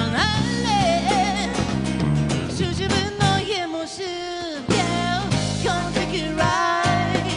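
Band playing an upbeat rock song live, with a voice singing a gliding melody over the instruments.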